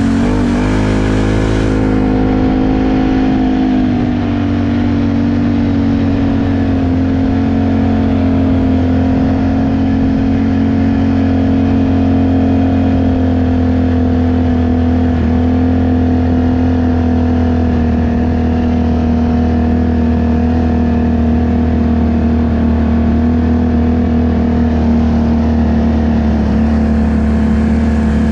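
ATV engine running under way at a steady pace. Its pitch dips and wavers briefly near the start, then holds even.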